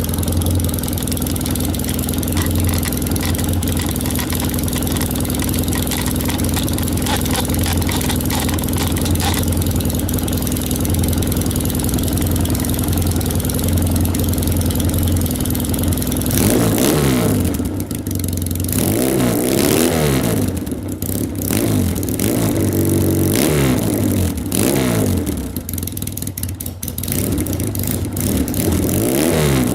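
Yamaha XS650 parallel-twin engine breathing through short new straight pipes, idling steadily, then revved repeatedly from about halfway through, the note climbing and falling with each blip of the throttle.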